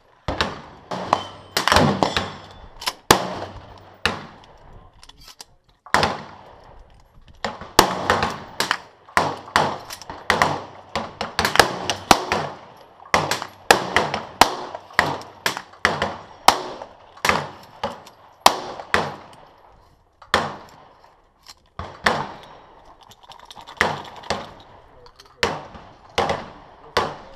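Shotguns firing on a trap range: many sharp shots in irregular succession, often one or two a second and sometimes overlapping, each followed by a short echo.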